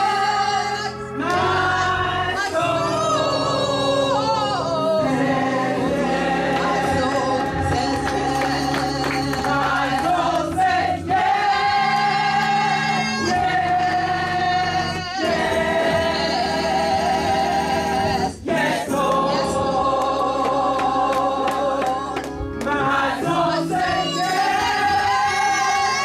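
Gospel choir singing, with long held notes that shift pitch together every second or two.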